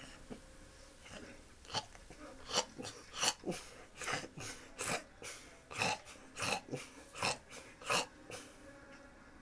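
A run of short, sharp snorts and mouth noises from a snoring sleeper, about two a second for several seconds, starting a couple of seconds in and stopping shortly before the end.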